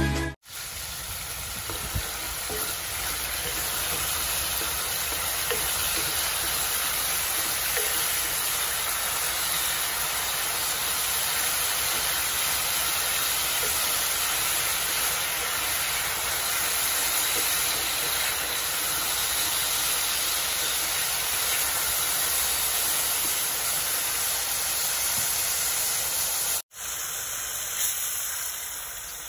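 Squid adobo with onion and garlic sizzling and simmering in a pot: a steady hiss that drops out briefly near the end and comes back quieter.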